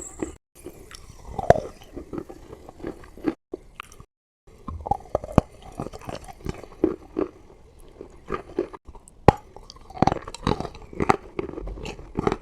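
Chalk being chewed close to the microphone: irregular crisp crunches and wet mouth clicks. The sound cuts out completely twice, briefly just after the start and for about a second around three to four seconds in.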